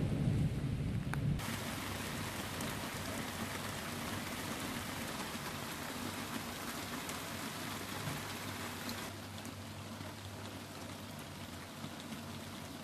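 Steady rain falling in a thunderstorm, an even hiss, with the tail of a low thunder rumble dying away in the first second or so.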